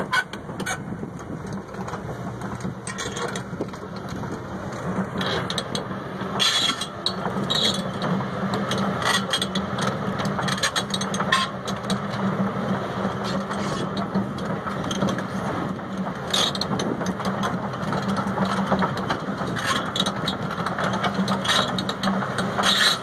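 Six-cylinder diesel engine of a Doosan DX255LC excavator idling steadily, its hum growing stronger about a quarter of the way in. Over it comes a run of dry crackling clicks, like footsteps through dry grass.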